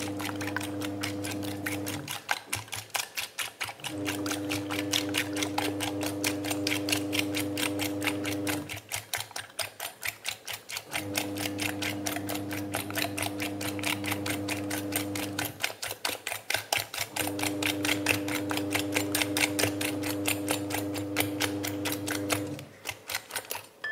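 Hand whisk beating egg whites and sugar in a glass bowl, its wires clicking fast and evenly against the glass as the whites are whipped toward a white foam. A steady low hum runs underneath and drops out three times.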